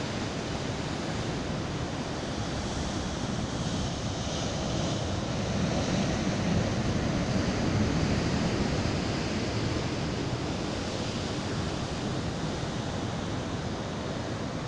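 Rough surf breaking and washing in over shore rocks, with wind on the microphone. The steady rush swells a little about halfway through.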